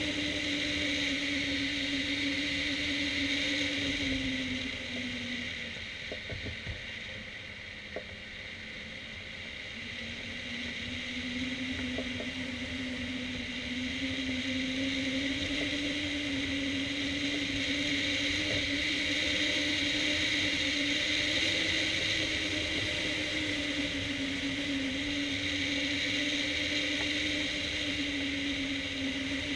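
Wind rushing over a hang glider and its wing-mounted camera in flight, with a steady low hum under the hiss. The hum and the rush dip in pitch and loudness for a few seconds about a quarter of the way in, then rise again.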